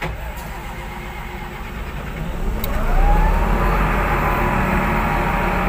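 Komatsu GD705-5 motor grader's diesel engine being started: the starter cranks for about two and a half seconds, then the engine catches with a rising whine and a jump in loudness and settles into a steady idle.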